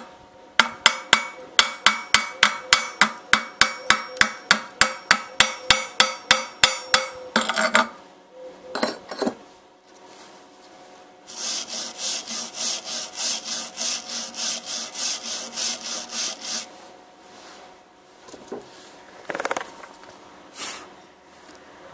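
Chipping hammer striking slag off a fresh basic (7018-type) stick weld on steel plate: a run of quick ringing metal taps, about four a second, for some seven seconds. After a pause come about five seconds of brisk scraping strokes across the weld, then a few scattered knocks.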